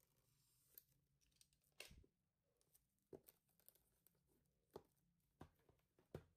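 Faint tearing and crinkling of plastic shrink wrap being pulled off a boxed album, with about half a dozen short taps and knocks of handling.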